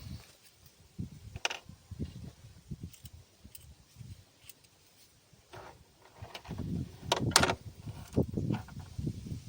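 Scattered clicks and light knocks, more frequent in the second half, with a sharper click about seven seconds in.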